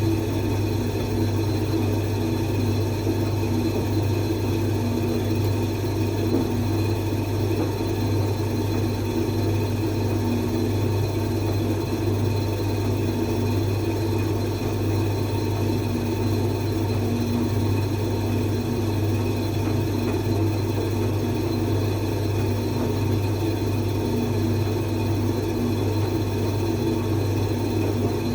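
Creda 37761 appliance running with a steady low hum and a rough, unchanging drone: the noise fault its owner is asking to have fixed.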